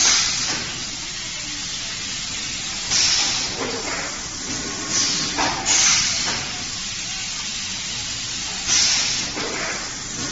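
Fully automatic popcorn paper cup sealing machine running, with a loud hiss of released air roughly every three seconds over its steady mechanical noise.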